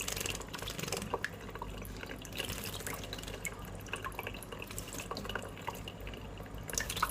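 A small pet bird bathing: water trickling with many light, irregular drips and splashes.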